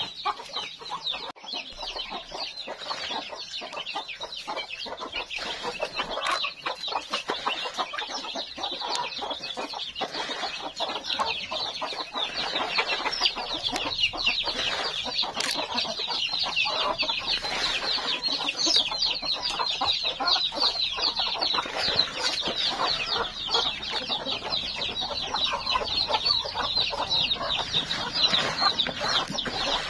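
A flock of free-range village chickens with chicks: hens clucking over a dense, unbroken stream of short high peeps.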